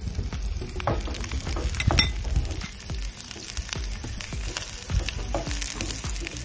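Diced onion sizzling as it sautés in oil in a non-stick frying pan on a gas burner. A wooden spatula stirs it, clacking against the pan a few times, most sharply about 1, 2 and 5 seconds in.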